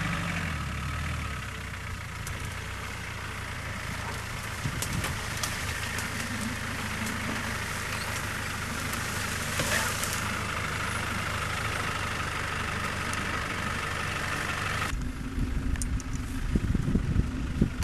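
Land Rover Discovery's 200Tdi four-cylinder turbodiesel running steadily at low revs as it crawls along a narrow lane, with a scratchy rustle and scattered snaps as the hedge drags along its bodywork. The sound cuts off abruptly about fifteen seconds in, giving way to wind buffeting the microphone.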